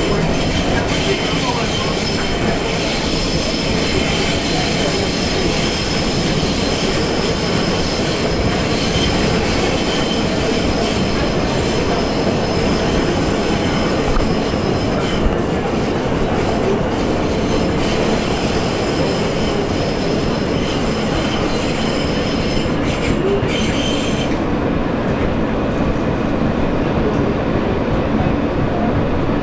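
New York City subway train running on an elevated track, heard from inside the car: a steady rumble of wheels on rail with a thin, high wheel squeal that cuts off a few seconds before the end.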